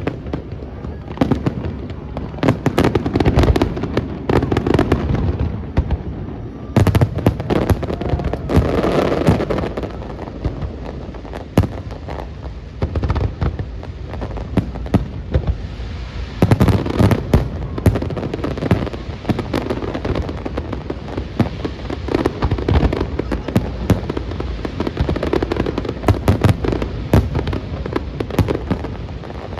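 Aerial fireworks display: a continuous barrage of shell bursts and crackle, many bangs in quick succession, with heavier volleys a few seconds in, around eight seconds and just past the middle.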